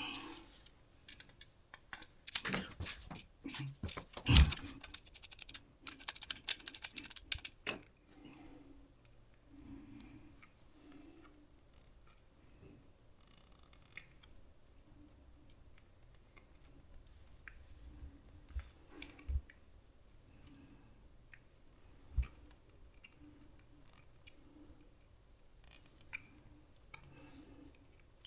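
Snips, clicks and rustling of hand tools and wires being worked at a wall socket's terminals, busiest in the first eight seconds with one sharp, loud click about four seconds in, then only a few faint clicks.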